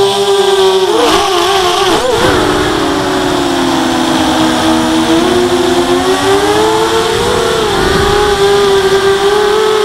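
ZMR 250 racing quadcopter's rctimer 2300kv brushless motors spinning 5x3 props, a loud steady whine that follows the throttle. The pitch wavers quickly about one and two seconds in, sinks lower for a few seconds, then climbs back near the end.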